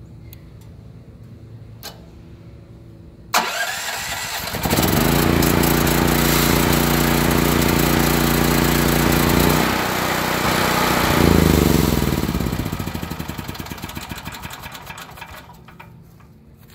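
Portable generator's engine started by its electric starter: a brief cranking from about three seconds in, catching a second later and running steadily at a constant speed. About twelve seconds in it is shut off and winds down, the pitch falling as it coasts to a stop.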